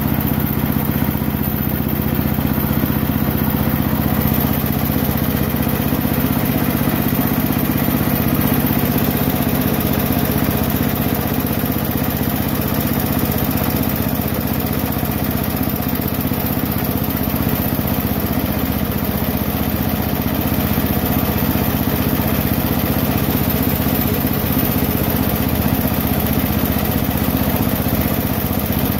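Cast-iron Briggs & Stratton single-cylinder engine running steadily under its governor.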